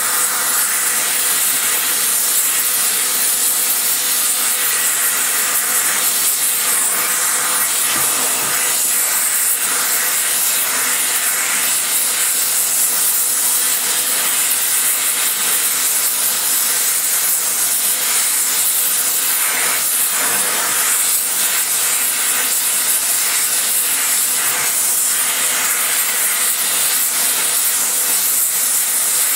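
Spray welding torch flame hissing steadily while fusing weld onto the combustion chamber of a cast iron Ford FE 390 cylinder head.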